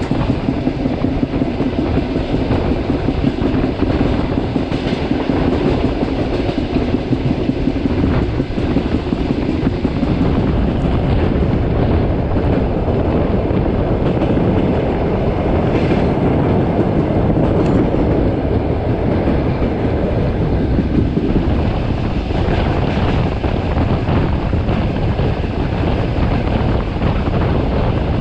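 Passenger train running steadily along the track: a continuous rumble of wheels on rails, heard from inside the carriage.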